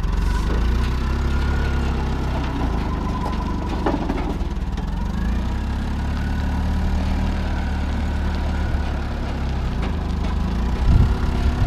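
A vehicle engine idling steadily with a low, even drone, with a single short knock about four seconds in.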